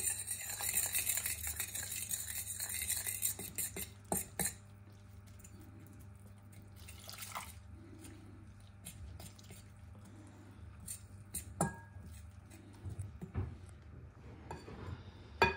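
Cold water poured into a bowl of flour for the first four seconds or so, then a fork mixing tempura batter, with scattered clinks and taps against the bowl and one sharp clink at the end.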